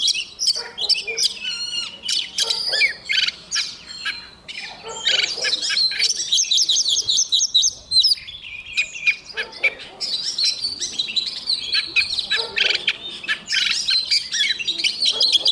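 Oriental magpie-robin singing a continuous, varied song of whistled phrases and fast runs of repeated notes.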